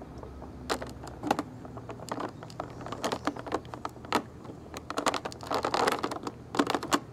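Scissors snipping at a clear plastic blister tray, with scattered sharp clicks and crinkling of the stiff plastic as it is cut and flexed; the crackling gets denser in the last couple of seconds.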